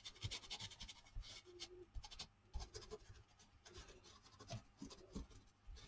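Foam sponge dauber dabbing and scrubbing acrylic paint through a plastic stencil onto paper: a faint run of quick, soft scratchy taps.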